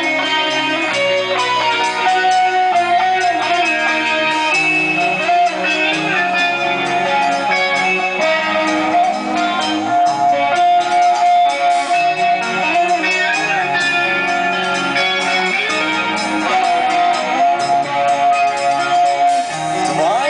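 Loud guitar-led music, playing continuously with long held notes.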